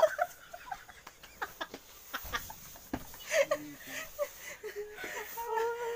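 A small group of young people laughing together: a loud outburst right at the start, then scattered giggles and gasping laughs, with a drawn-out squealing laugh near the end.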